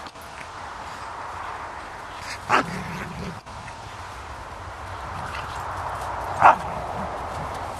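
Two Labrador retrievers play-fighting, with two short barks about four seconds apart over a steady hiss.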